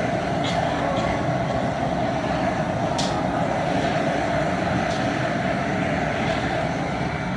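Gas burner under a large crawfish boiling pot running with a steady roar, the seasoned water at a rolling boil. A few brief clicks sound over it.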